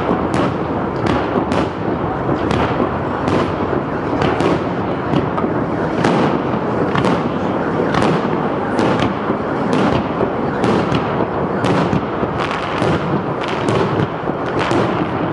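Aerial firework shells bursting in a steady barrage: sharp bangs come about two a second over continuous noise from overlapping booms.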